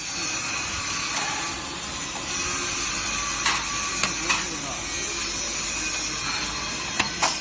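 CNC drilling machine's spindle motor running steadily, with a few short sharp clicks about three and a half seconds in and again near the end.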